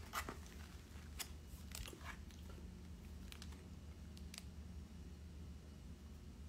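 Faint scattered clicks and taps from a smartphone being handled on a table, over a low steady hum.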